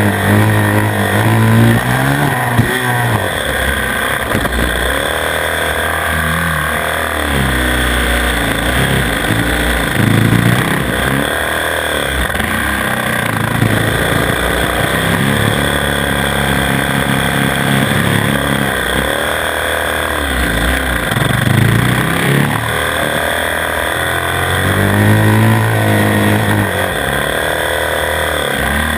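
Single-cylinder 450 cc four-stroke supermoto engine heard from onboard, revving up and dropping back again and again as the bike accelerates out of each corner and shuts off into the next.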